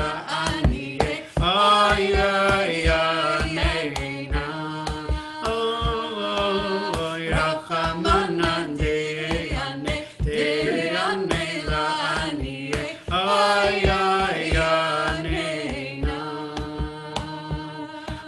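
Singing of a Jewish High Holiday prayer melody, the voice line gliding up and down over a steady low beat.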